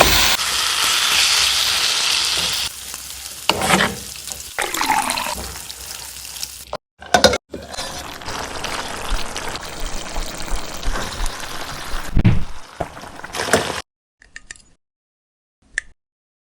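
Chicken and tomatoes sizzling in a frying pan as they are stirred, loudest over the first few seconds and then settling to a lower, uneven sizzle with occasional knocks. It cuts off abruptly about three-quarters of the way through.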